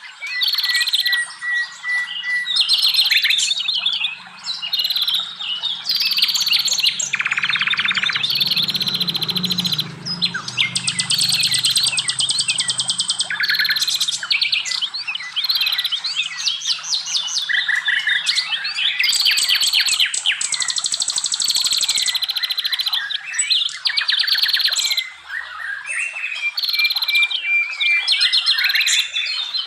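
Several forest songbirds singing at once in a dense chorus of overlapping chirps, fast trills and high whistled phrases.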